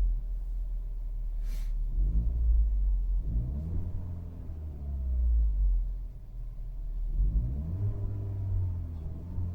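Car engine, a 1.6 THP turbocharged four-cylinder petrol, running with a low rumble and repeatedly rising in pitch and easing back down.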